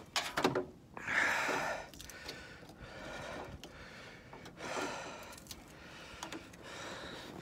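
A person breathing out hard close to the microphone: a loud rushing exhale about a second in and a weaker one midway, with a few clicks of handling near the start.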